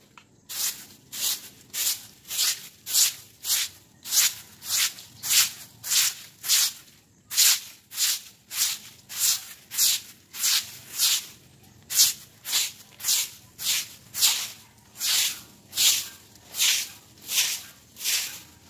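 A broom sweeping wet concrete in quick, regular strokes, about one and a half scratchy swishes a second.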